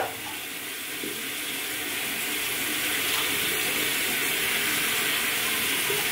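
Tap water running steadily into a sink, growing a little louder over the first couple of seconds.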